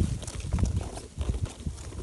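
Irregular low knocks and thumps, with faint short high cheeps from begging bulbul nestlings.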